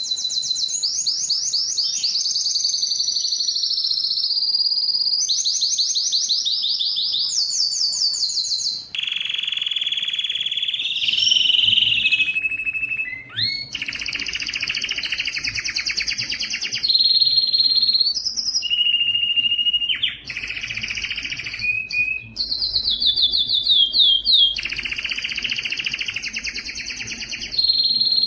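Male Spanish timbrado canary singing a continuous song of rapid rolled trills alternating with short held whistled notes, the phrase changing every second or two.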